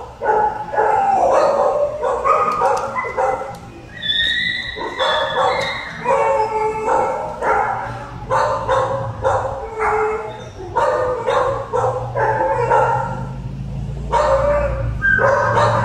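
Dogs barking and yipping in quick, crowded bursts, several calls a second, with a few higher, drawn-out whining calls about four seconds in.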